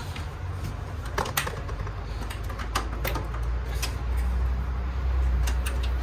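Scattered sharp clicks and taps of cable plugs being pushed into the rear ports of a desktop PC's metal case, over a low rumble that grows louder from about halfway.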